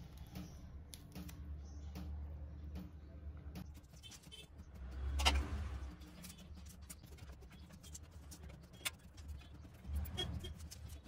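Quiet handling sounds of roselle (ambadi) flowers being stripped by hand: small clicks and crisp tearing as the fleshy red calyx petals are pulled off, with a louder knock about five seconds in, over a low steady hum.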